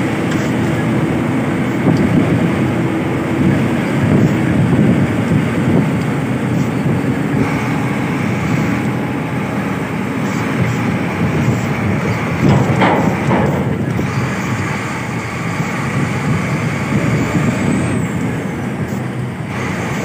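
Loaded-haul dump truck driving slowly along a dry dirt road: the diesel engine runs steadily under a continuous rumble of tyre and wind noise.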